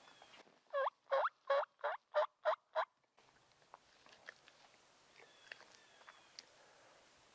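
A turkey gobble: a rapid rattle of about seven notes lasting about two seconds, followed by faint small ticks and rustles.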